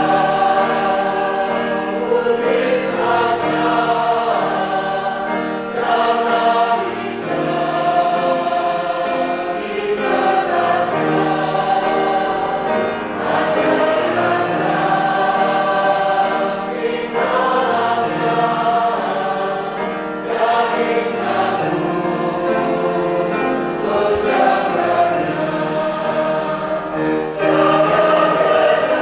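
A mixed church choir, men and women together, sings a hymn in Indonesian in held chords that change every second or two.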